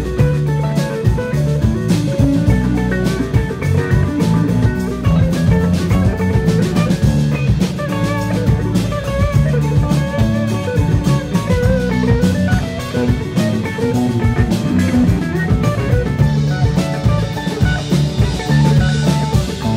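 Live rock band playing an instrumental jam: a guitar lead line over drum kit and bass, with no singing.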